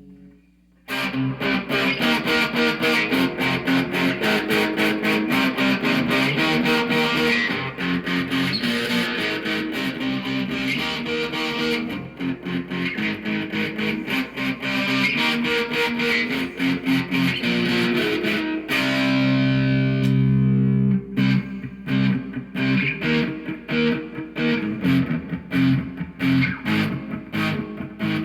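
Electric guitar played through a pair of Fender Twin amplifiers with a Digitech Bad Monkey overdrive pedal: a fast, overdriven picked riff starting about a second in, a chord left ringing for a couple of seconds about two-thirds of the way through, then short choppy riffing again.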